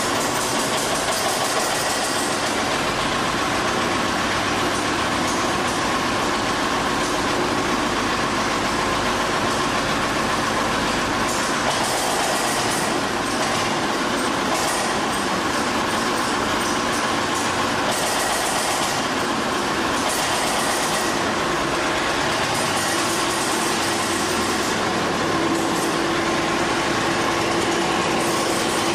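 Nimbus Junior 2 motor dumper's engine running steadily and loudly. Near the end a steady hum comes up as the dumper starts to drive off.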